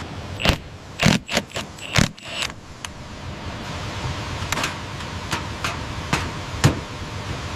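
Irregular sharp taps and knocks of hand-tool work on timber during building, over a steady hiss. The knocks come in two clusters, one in the first three seconds and another from about four and a half seconds in.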